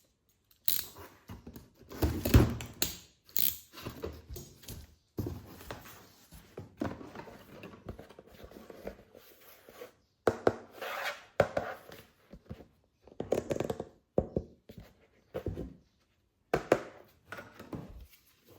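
Plastic toy guns and their packaging being handled: irregular knocks, clicks and rustling.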